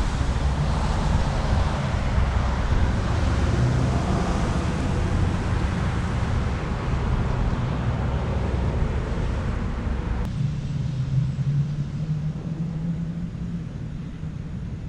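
Road traffic noise: a steady rumble and hiss of passing cars. The hiss drops away sharply about ten seconds in, leaving a low hum.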